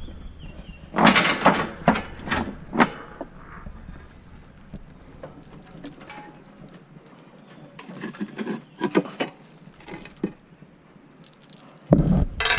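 Irregular knocks and clatters, in a cluster about one to three seconds in and another around eight to ten seconds in, over a low rumble that dies away about halfway through.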